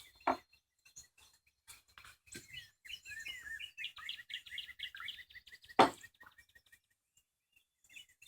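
Small birds chirping in quick, busy runs, with two sharp knocks: one just after the start and a louder one nearly six seconds in.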